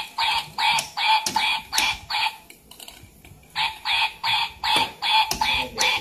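Electronic sounds from a battery-powered egg-laying toy hen's speaker: short repeated pulses, about two a second, with a pause of about a second near the middle.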